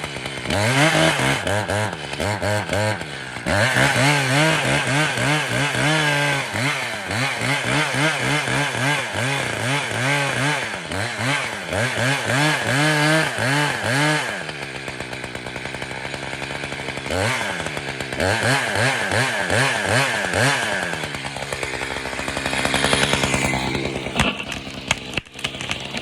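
Two-stroke chainsaw cutting into a spruce, its engine pitch rising and falling as the chain works under load. About 14 s in it settles to a steadier running pitch, with a brief rev a few seconds later.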